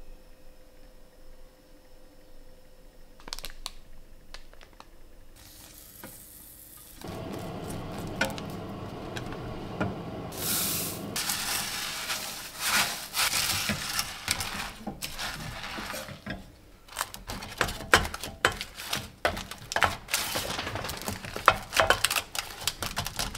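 Puffed rice being poured into a stainless steel saucepan of melted marshmallow and stirred in. The second half has many sharp clicks and scrapes of utensil and hands against the pot. The first few seconds are quiet, with a faint steady hum.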